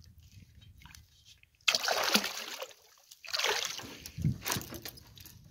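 A hooked wels catfish splashing and thrashing at the water's surface beside the boat as it is landed: two loud splashes, the second about a second and a half after the first.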